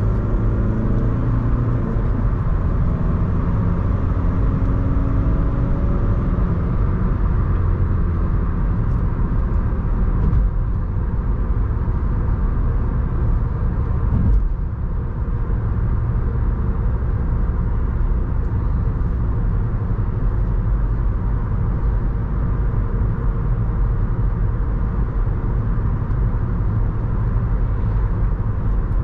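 Audi A1 1.6 TDI diesel engine and tyre noise while cruising at expressway speed: a steady low drone. One brief thump comes about halfway through.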